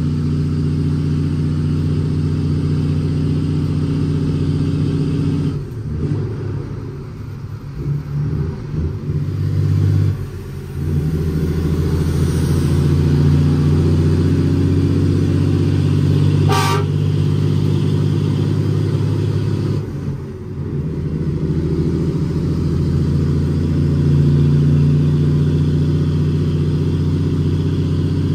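Cab-interior sound of an International ProStar dump truck's ISX Cummins 525 hp engine pulling steadily under a full load of gravel. The engine drops off and comes back twice, about six seconds in and about twenty seconds in, as gears are changed on the 18-speed transmission. A brief sharp noise comes about sixteen seconds in.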